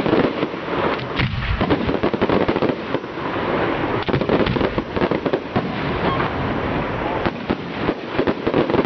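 Fireworks display going off: a dense, unbroken run of bangs and crackling shells.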